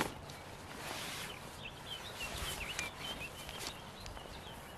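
Fabric rustling and handling noises as camping gear is pushed into a large backpack, with a few light knocks. A bird chirps a string of short, quick notes in the middle.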